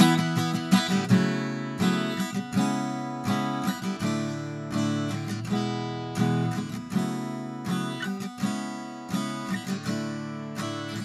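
Steel-string acoustic guitar strummed in a steady rhythm of chords, close-miked through a handheld dynamic stage microphone.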